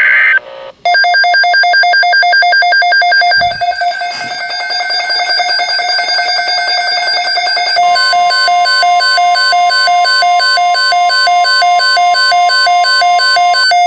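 Loud Emergency Alert System tones from a NOAA Weather Radio broadcast, announcing a tornado watch: rapid, evenly repeating electronic beeping and buzzing, joined about eight seconds in by a steady 1050 Hz attention tone that stops shortly before the end.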